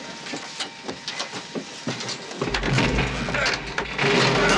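Knocking and clattering as men wrench at a stuck airliner cabin door. About halfway in, a loud low rumble sets in, and a rush of noise swells near the end as the door is forced.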